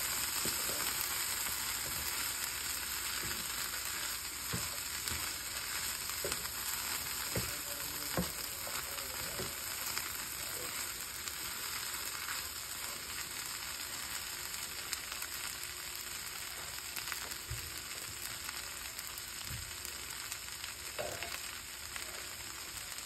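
Boiled cowpeas sizzling steadily as they fry in a pan, with faint scrapes and taps from a wooden spatula stirring them.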